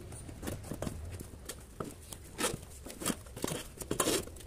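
Rubber inner tube being pulled by hand out of a motorcycle tyre on a spoked wheel, rubbing and scraping against the tyre and rim in a run of irregular short strokes, loudest about halfway through and near the end.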